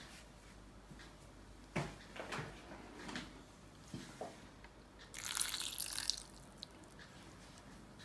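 A few faint clicks and taps, then about five seconds in a brief hiss of water poured or sprinkled over powdered raw beef chunks in a stainless steel bowl.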